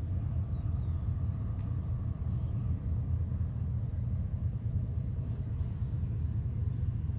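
Steady low rumble with a continuous high-pitched insect chorus, cricket-like, running over it.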